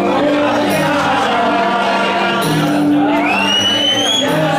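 Live Greek folk music: steady held low notes under a moving melody, with a high note gliding upward and holding about three seconds in.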